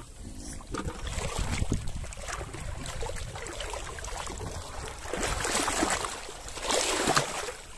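Pond water sloshing and swishing around a person wading waist-deep, with louder surges about five seconds in and again near seven seconds.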